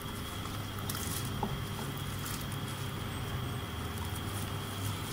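Soaked rice being tipped from a plate into a pot of boiling water with whole spices: a soft pattering of grains with a few faint taps, over a steady low hum.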